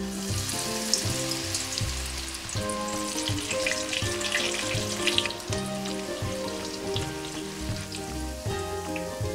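Grated taro strips deep-frying in hot oil in a saucepan: a steady sizzle with crackling that starts as the strips go in and is loudest a few seconds in. Light background music plays underneath.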